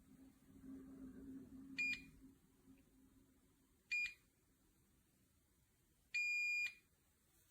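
Electronic beeper of a biometric fingerprint gun safe sounding during fingerprint enrollment: two short high beeps about two seconds apart, then a longer beep about six seconds in.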